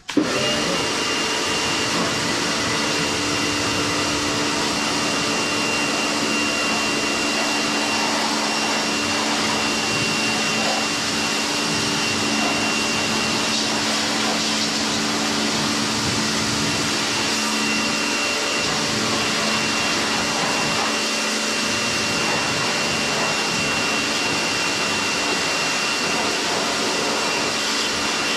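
Kärcher electric pressure washer switching on and running steadily, its motor whine over the hiss of the high-pressure water jet spraying onto a motorcycle.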